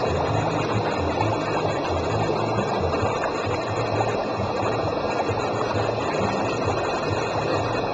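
Steady water noise from aquarium tanks: pumps and aeration keep the water running and bubbling, over a low pulsing hum.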